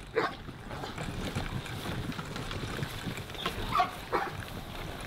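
Plastic pull wagon rolling over dry grass, a steady low rumble, with a few short whines from the Weimaraner puppies riding in it about three and a half seconds in.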